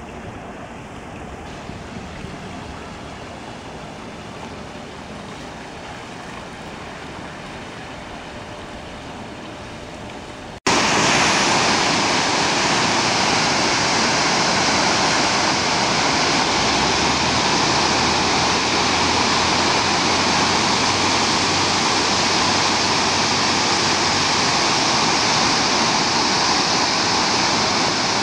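Water pouring over a concrete river dam's spillway: a loud, steady rush of falling water that starts abruptly about ten seconds in. Before that there is only a quieter, even background noise with a few faint splashes of a hand in a shallow pool.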